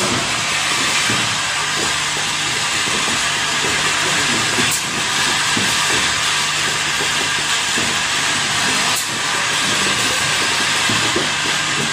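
Valve assembly machinery on a factory floor: a steady hiss over a low hum, with a sharp click about five seconds in and another about nine seconds in.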